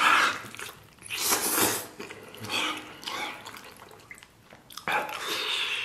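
A man biting, sucking and chewing skin and meat off a braised pork trotter held in his hands, in four bursts with short quiet gaps between them.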